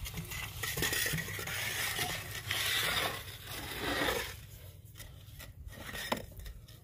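Scraping and rubbing as a bore pipe is turned by hand with a wooden clamp bar, grinding into the soil of the borehole. It is loudest for the first four seconds, then quieter with a few sharp clicks.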